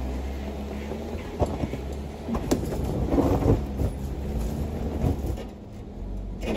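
Jeep Wrangler engine rumbling at low speed as it crawls over rock ledges, with tires grinding on stone and several sharp knocks as the wheels and underside meet the rocks.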